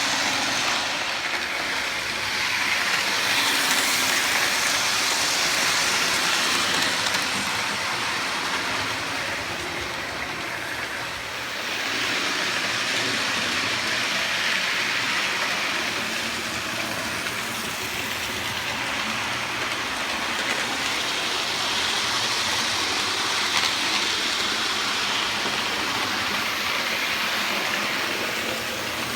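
Hornby model train running round the layout's loop: the small electric motor whirs and the wheels rattle on the track. It grows louder and fainter three times as the train passes near and goes away around the circuit.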